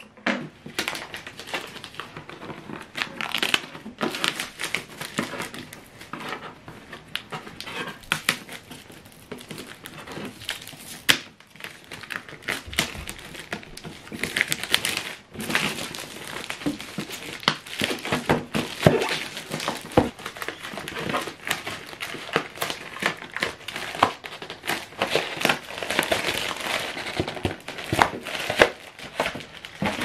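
Thin plastic shrink-wrap crinkling and crackling as it is torn and peeled off a cardboard product box, in a continuous irregular run of sharp crackles.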